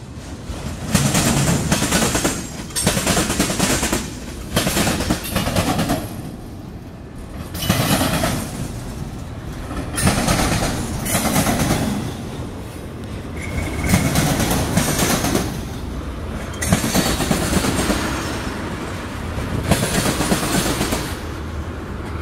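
Freight train cars (autoracks, then tank cars) rolling past close by, the wheels clattering over the rails in loud surges every two to three seconds as each set of trucks goes by.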